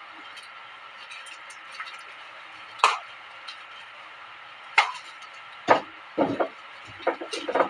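Packaging and parts being handled during an unboxing: sharp clicks and knocks about three and five seconds in, then a quick run of knocks and rustles near the end, over a steady background hum.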